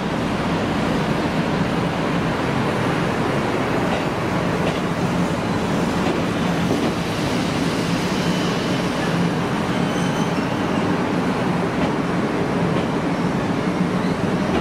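Abukuma Express 8100 series electric train pulling into the platform, its wheels and running gear rumbling steadily as the cars pass, with a faint high wheel or brake squeal partway through.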